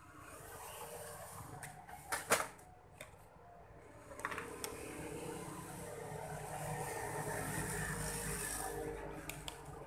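Sharp clicks and knocks of small parts and tools being handled on an electronics repair bench, loudest about two seconds in, over a steady hiss and low hum that grow louder in the second half.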